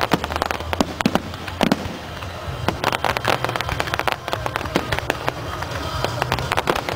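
Fireworks display: a rapid string of sharp bangs and crackles from volleys of low-level fireworks, with music playing underneath.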